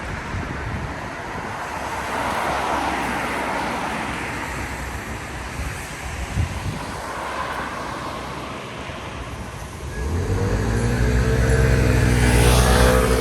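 Street traffic on wet roads: cars passing with a hiss of tyres that swells and fades. From about ten seconds in, a heavier vehicle passes close, with a louder low engine drone.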